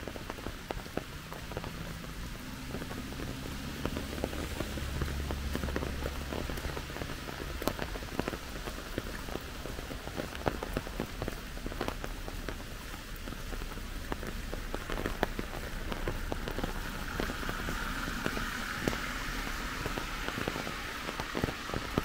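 Steady rain falling, a hiss of rain with many separate drops ticking close by. It grows a little stronger after about three-quarters of the way through.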